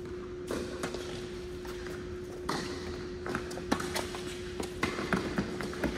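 Tennis ball struck back and forth by rackets in a rally, starting with a serve: a series of sharp, separate pops, mixed with shoe scuffs and footsteps on a hard court.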